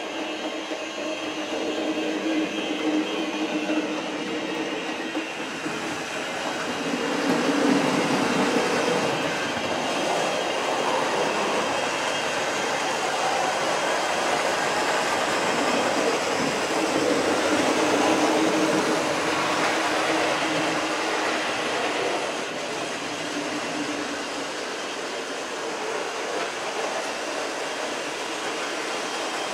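OO gauge model trains running along the layout's track: a steady running rattle that swells about seven seconds in and again around sixteen to nineteen seconds as trains pass.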